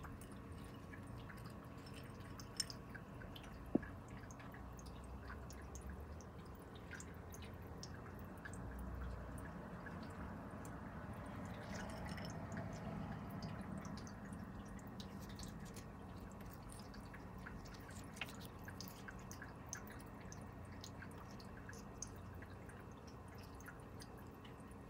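Quiet handling of plant cuttings in water-filled glass propagation tubes: faint scattered ticks and drips of water, with two sharper clicks about three and four seconds in, over a low steady hum.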